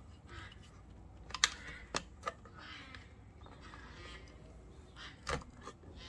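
Scattered sharp clicks and taps of hands handling a plastic video-doorbell mounting plate and tucking its wires, about four clicks with the loudest near the end.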